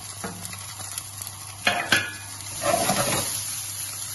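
Diced vegetables sizzling in a frying pan while a wooden spoon stirs them, the spoon knocking and scraping against the pan. There are two louder knocks a little under two seconds in.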